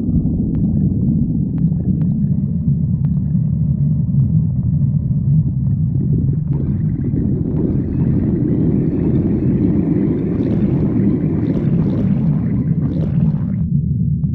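Stomach growling: a long, continuous low rumble. About six and a half seconds in, a higher-pitched layer joins it and then cuts off suddenly about a second before the end.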